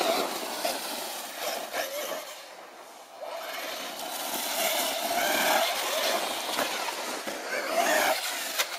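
Radio-controlled monster truck motor revving up and down as the truck drives, with its tyres churning through dry leaves and dirt. The motor eases off briefly about three seconds in, then revs hard again.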